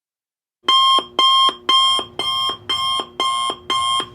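Alarm clock going off as a countdown timer reaches zero: a loud repeated beeping, about two beeps a second, starting just under a second in.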